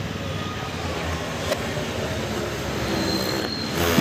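Lit firecracker on the road hissing steadily as it smokes, with one short crack about a second and a half in. Just before the end it flares into a louder rushing hiss as it starts jetting smoke sideways.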